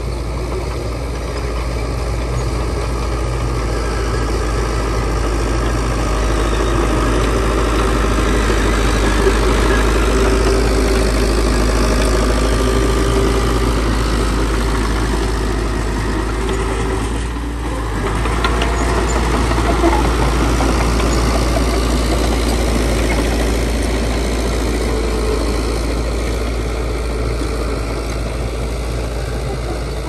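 Heavy diesel engine of earthmoving machinery running steadily, with a strong deep rumble, briefly dipping about halfway through.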